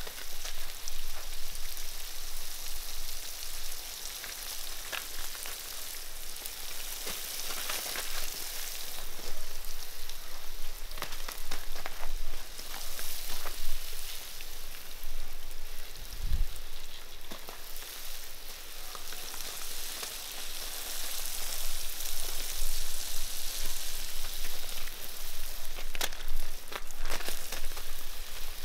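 Garden hose spray nozzle hissing as its jet of water spatters onto a foal and the wet gravel, the hiss swelling and fading as the spray is moved about.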